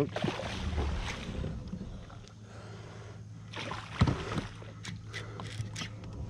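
Hooked snook thrashing and splashing at the water's surface: two spells of splashing, one at the start and one about three and a half seconds in. About four seconds in there is a sharp knock, followed by a few light clicks.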